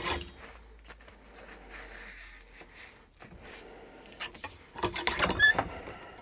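Handling noise of cleaning a shotgun barrel: a cleaning patch on a jag rubbed and pushed through the barrel with a cleaning rod, low rubbing and rustling with a click at the start and a louder burst of scraping and rattling about five seconds in.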